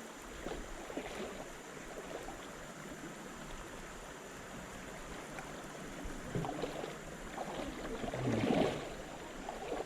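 Clear shallow river running steadily, with a few short louder water bursts; the loudest comes about eight and a half seconds in.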